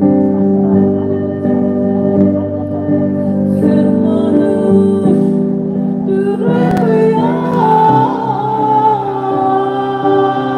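Live music: plucked gayageum notes over sustained organ-like held chords. A singing voice comes in with the melody about six seconds in.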